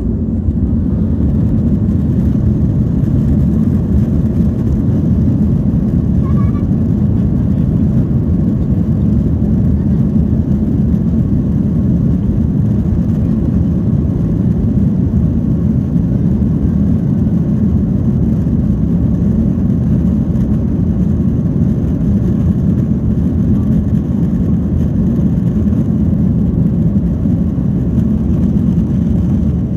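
Boeing 737-800's CFM56-7B turbofan engines at takeoff thrust, heard inside the cabin over the wing during the takeoff roll. A loud, steady low rumble swells up as the roll begins, with a faint high whine held over it.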